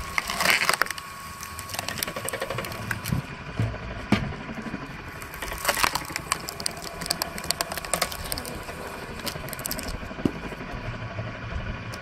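Belt-driven screw cone log splitter boring into rounds of firewood, the wood cracking and splintering as it splits, with two louder splits: one about half a second in and another around six seconds in.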